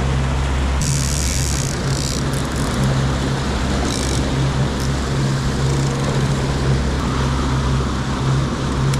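Boat engine running steadily at trolling speed, a low hum under a constant rushing noise, with two short bursts of hiss about a second in and about four seconds in.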